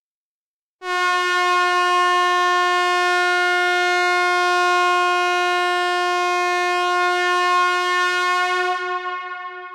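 Air horn sounding one long, steady blast at a single pitch, starting about a second in and holding for some eight seconds before fading near the end.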